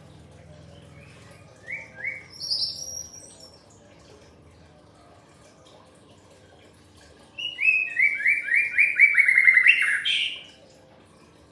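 Pet songbird singing: a short phrase of high notes, then a louder, fast run of about a dozen quick repeated notes that ends in an upward sweep.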